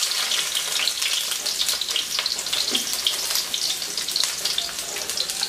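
Sliced red onions frying in hot olive oil in a wok: a steady sizzle full of small crackles.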